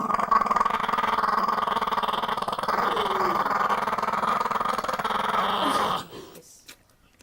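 A dog making a long, continuous growling vocal sound that cuts off suddenly about six seconds in.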